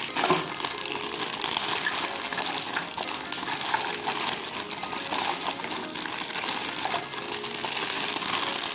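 Plastic packaging crinkling and rustling, with scattered small clicks and taps, as toy pieces are unwrapped and handled.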